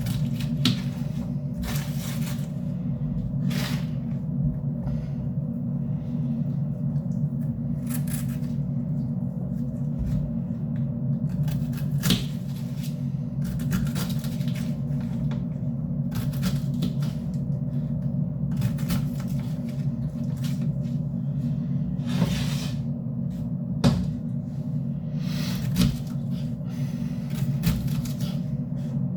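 Kitchen handling sounds: scattered knocks and clicks, like things being picked up and set down, over a steady low hum.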